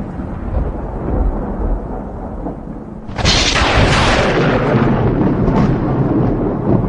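Thunder: a low rolling rumble, then a sudden sharp crack about three seconds in that fades back into rumbling.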